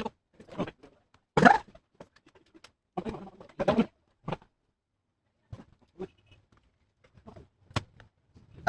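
Irregular clicks, taps and short scraping rustles of plastic laptop parts and tools being handled, in scattered bursts with short pauses between them.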